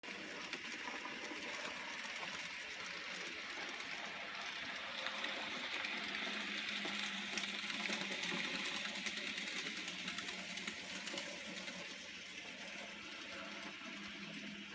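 An N scale model train running on its track: the small locomotive's motor whirs steadily, with fine rapid ticking from the wheels on the rails. A low hum comes in for a couple of seconds midway and again near the end.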